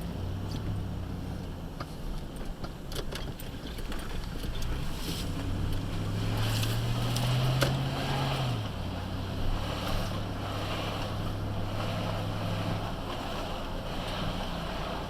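Motorcycle engine running under way, with wind rushing over the microphone; about halfway through the engine note climbs for a few seconds, then drops suddenly.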